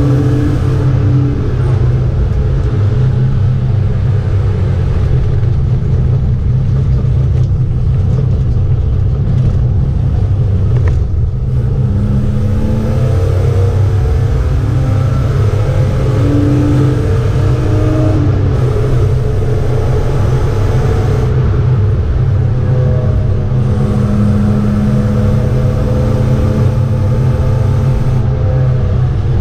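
A BMW 325 E36 race car's straight-six engine running hard at speed on track, heard inside the cabin over a heavy, steady rumble. The engine note rises and falls with throttle and gear changes.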